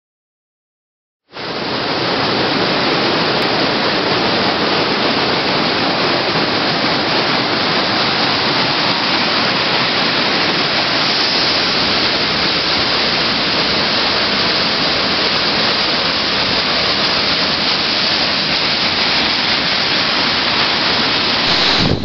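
Waterfall cascading over boulders: a loud, steady rush of falling water that starts abruptly about a second in, after silence.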